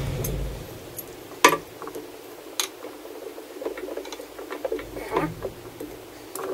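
Hand tools clinking on the metal of an outboard powerhead: scattered sharp, irregular clicks and ticks as a wrench works the carburetor fastenings.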